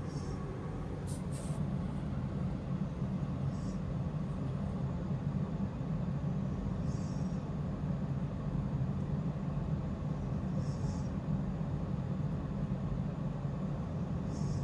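A woman snoring in her sleep: a short, high-pitched sound with each breath, about every three and a half seconds, over a steady low hum. Two sharp clicks come about a second in.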